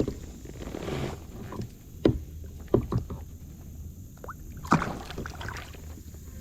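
Kayak being paddled: paddle strokes in the water with a few sharp knocks, the loudest near the start and a little before five seconds in.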